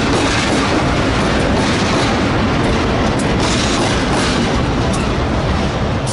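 MRS C26-7MP diesel-electric freight locomotives passing close by under power as the train pulls out: a loud, steady engine and running noise, with a few scattered clicks from the wheels on the rails.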